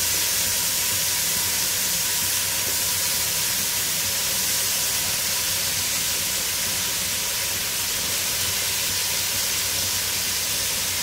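Ground masala and freshly added chopped vegetables sizzling steadily in a hot aluminium pot, an even hiss with no breaks.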